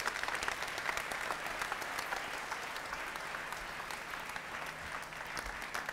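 An audience applauding: many hands clapping in a steady dense patter that swells at the start and holds.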